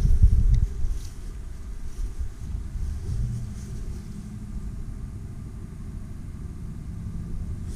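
1969 Chevrolet pickup's engine running, heard at the exhaust as a low rumble: louder for about the first second, then settling to a steady idle.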